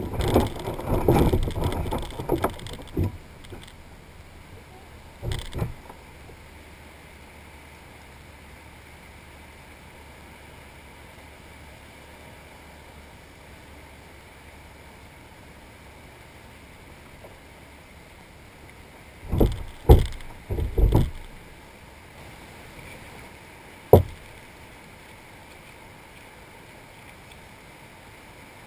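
Knocks and bumps on the kayak and its gear close to the microphone. A burst of rustling and knocking comes in the first few seconds, then a cluster of sharp knocks about twenty seconds in and a single one a few seconds later, over a quiet steady background.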